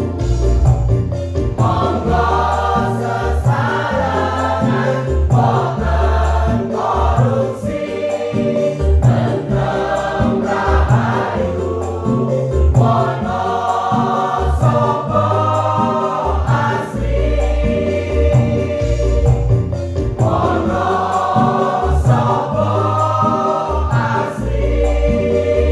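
Mixed choir of men and women singing together over instrumental backing with a deep, rhythmic bass line.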